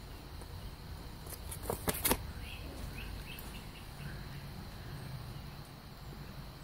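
Faint, short, high squeaks from young kittens in a nest box, after a few sharp knocks about two seconds in. A low steady hum runs underneath from about four seconds in.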